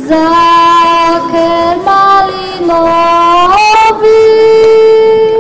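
A young girl singing a Slovak folk song solo, with no accompaniment, in steady held notes that step up to a long high note near the end.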